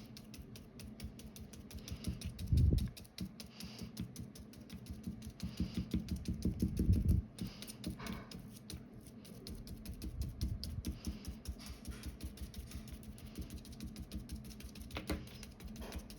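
Quick, irregular light tapping and clicking, with a louder flurry about two and a half seconds in and another about seven seconds in.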